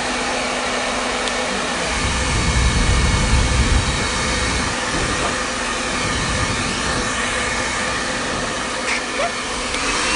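2500 W professional hair dryer running with its heater on: a steady blowing rush with a faint motor whine. Low, uneven rumbles come and go as the airflow buffets the microphone.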